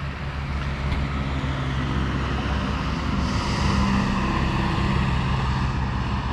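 Old tractor engine running as it comes closer, a steady low engine note growing louder over the first few seconds and then holding.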